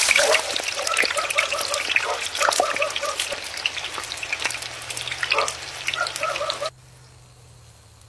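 Tofu frying in hot oil in a wok: a steady sizzle full of sharp crackling pops, which cuts off suddenly near the end, leaving a faint hum.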